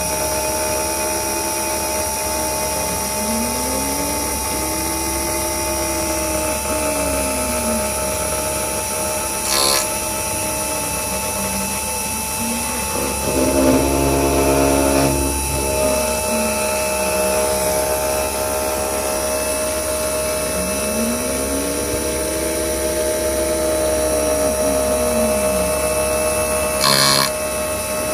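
CNC milling machine cutting a connecting rod under flood coolant: a steady whine from the spindle, with a lower tone that rises and falls in pitch every few seconds as the axis drives speed up and slow down. It grows louder for a couple of seconds around the middle, and there are two short sharp noises, about ten seconds in and near the end.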